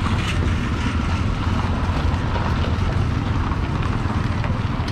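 Outdoor street background noise dominated by a steady low rumble, with no single clear event.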